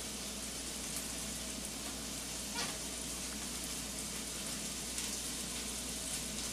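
Steady background hiss with a low hum underneath and no distinct event, apart from one faint click about two and a half seconds in.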